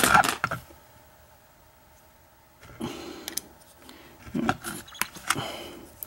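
Metal clicks and clinks of a steel puck lock being handled and a hex Allen key being fitted into a screw on its back plate. There is a cluster of clicks at the start, then scattered clicks again from about three seconds in.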